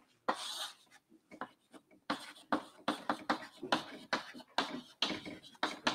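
Chalk writing on a chalkboard: a single stroke near the start, then from about two seconds in a quick, irregular run of short scratches and taps as an arrow and words are written.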